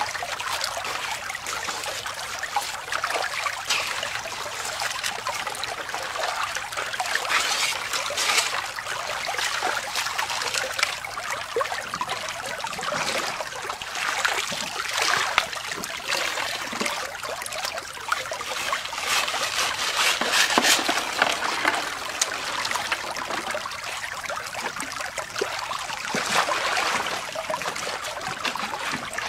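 Shallow creek water running through a bazooka gold sluice and over the rocks around it: a steady trickling rush with brief splashes now and then.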